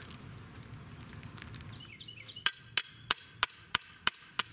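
Sledgehammer striking a metal fence post, driving it into the ground: a run of sharp, evenly spaced strikes, about three a second, starting about halfway in.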